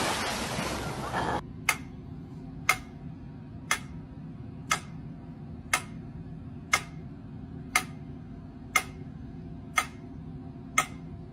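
A rushing noise cuts off abruptly about a second and a half in. Then sharp ticks come evenly, about once a second, ten in all, over a low steady hum.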